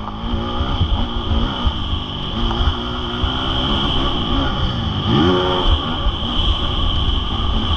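Honda CRF 450R single-cylinder four-stroke motocross bike running on the track, its revs rising and falling with the throttle, with a sharp rev-up and drop about five seconds in.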